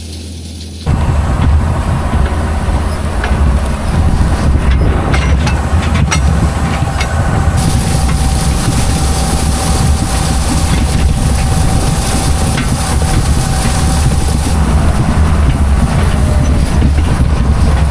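Farm tractor running with a steady low drone and a constant rattling, clicking clatter from its working hay equipment, starting abruptly about a second in.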